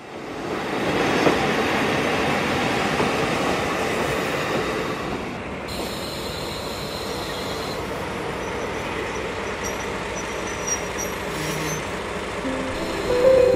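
Furano Biei Norokko sightseeing train, hauled by a diesel locomotive, moving through the station with a steady rumble and rattle of wheels and cars, loudest in the first few seconds. Thin high wheel squeals come in the middle. Gentle music begins near the end.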